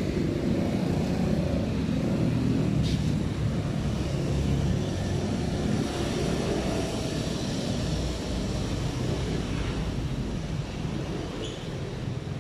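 Steady low mechanical rumble of a running engine or motor, with a faint click about three seconds in.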